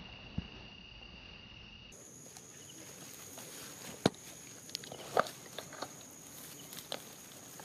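A steady high insect drone, with scattered clicks and rustles and a sharp knock about four seconds in as a macaque comes up against the camera.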